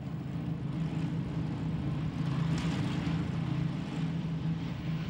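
Piston engines of a propeller aircraft running steadily, an even low drone with no change in pitch.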